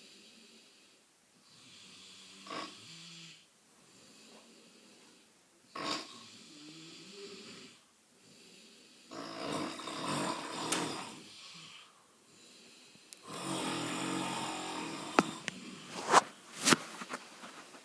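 People snoring in their sleep. Separate snores come every three to four seconds and grow louder toward the end, where there are a few brief sharp sounds.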